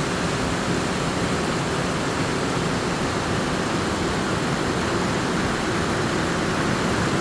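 Waterfall in a mountain gorge: a steady, even rush of falling water.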